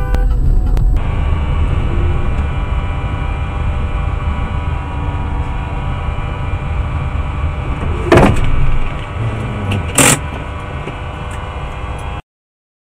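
Car engine and road drone heard from inside the car through a dashcam, with two sharp knocks about eight and ten seconds in. The sound then cuts off suddenly.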